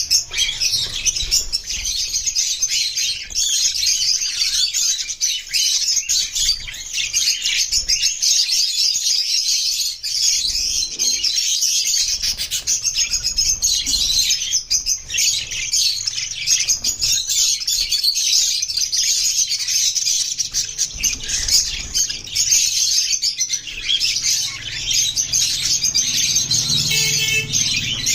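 Budgerigars chirping and chattering without a break, many quick high-pitched calls overlapping.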